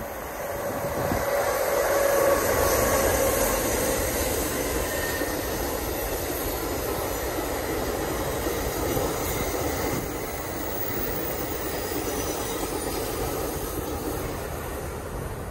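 NJ Transit passenger train passing: a steady rumble of wheels on rail that swells to its loudest a couple of seconds in and then holds, with a faint whine that drops slightly in pitch over the first few seconds.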